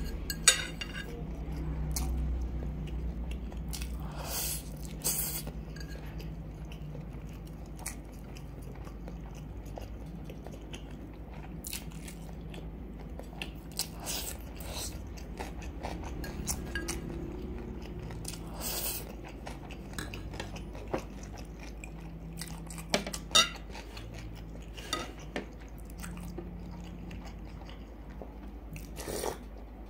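Close-miked eating: a metal fork clinking and scraping on a ceramic plate, and chewing and crunching of noodles and a cucumber slice, with scattered sharp clicks over a low steady hum.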